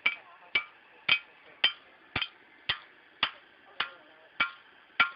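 Blacksmith's hammer striking hot steel on an anvil in a steady rhythm, about two blows a second, each blow ringing briefly.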